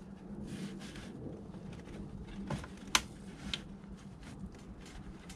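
Faint handling noise of wiring and plastic parts inside a generator frame being pulled and worked loose: scattered small clicks and rustles, with one sharp click about three seconds in, over a low steady hum.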